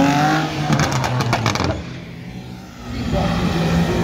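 Drift car engine at high revs, with a quick run of sharp cracks about a second in. The engine then falls away and quietens briefly before engine sound builds again near the end.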